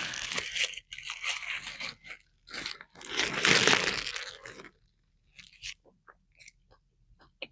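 Biting into and chewing a crispy fried chicken sandwich: crunching for the first four or five seconds, then only faint chewing clicks.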